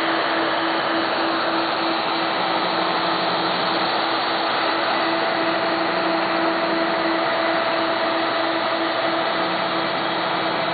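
Home-built CNC machine running at 90 inches per minute: a loud, steady motor whine and noise, with a lower hum that comes in about two seconds in, drops out about halfway, and returns near the end as the axes move.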